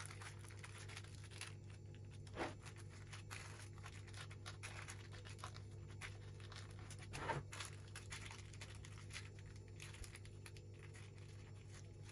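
Baking paper crinkling and rustling faintly as a baked carrot-and-egg omelette sheet is peeled off it with a silicone spatula, with two louder rustles, about two and a half and about seven seconds in, over a steady low hum.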